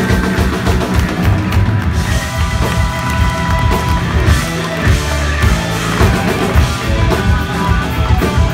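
Live blues-rock band playing loudly: electric guitar holding sustained notes over bass guitar and a driving drum kit beat.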